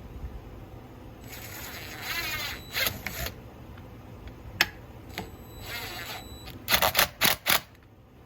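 Small cordless screwdriver buzzing in two short runs as a screw is driven in to refit a chainsaw's chain catcher, with sharp clicks and knocks of tool and metal parts between them and a quick flurry of clicks near the end.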